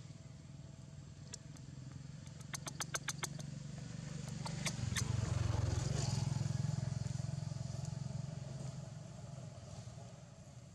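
A motor vehicle's engine passing by, its low hum growing louder to a peak about halfway through and then fading away. A quick run of sharp clicks comes a little before the peak.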